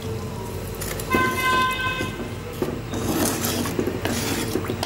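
Wooden spatula scraping and stirring thin curry sauce against the sides of a clay cooking pot, in repeated strokes. About a second in, a short horn-like tone sounds for under a second.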